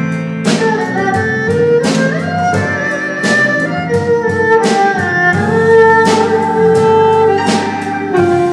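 Instrumental music: a melody of held notes moving step by step over chords, with a regular beat.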